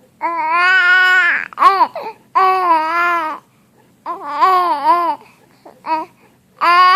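A baby vocalizing in a string of long, drawn-out cries, four of about a second each with two short ones between.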